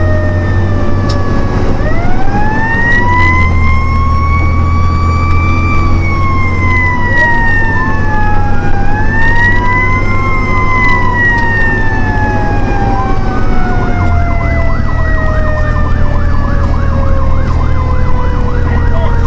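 Fire engine sirens wailing on a run, sweeping slowly up and down in long overlapping rises and falls, with a fast warbling yelp coming in a little past the middle. A steady low diesel drone from the truck's engine runs underneath.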